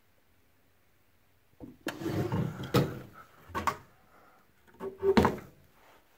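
The drawer and cabinet door of a wooden dining hutch being handled: a drawer slides shut with a scrape and a knock, then the cabinet door is swung and shut, giving a few more wooden knocks, the loudest near the end.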